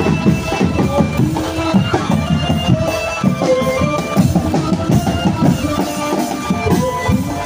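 Drum band music: fast, dense drumming with bass and snare drums under a melody of held notes.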